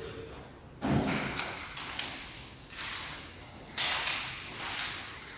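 A few soft thumps that ring on briefly in a large empty room, one about a second in and another near the end, over a faint steady hiss.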